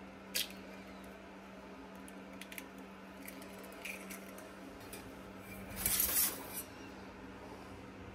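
An egg cracked with one sharp tap, then a few light clicks as the eggshell is pulled apart over a wire egg separator in a stainless-steel bowl. About six seconds in comes a louder scraping rustle lasting about a second.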